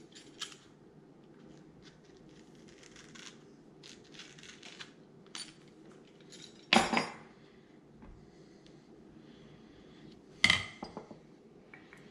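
Hand peeler scraping zest off an orange in faint rasps, with two louder sharp clinks of kitchen tools or glass against the wooden board, a little past halfway and near the end.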